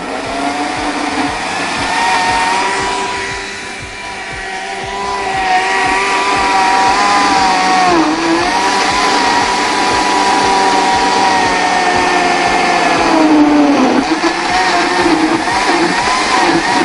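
Electric countertop blender running, blending banana, yogurt and honey into a milkshake. The motor's steady whine dips in pitch twice, about eight seconds in and again near fourteen seconds.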